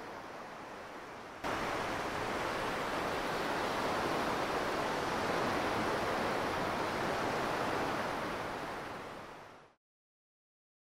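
Sound effect of surging waves, a steady wash of water noise that gets louder about a second and a half in, then fades out to silence near the end.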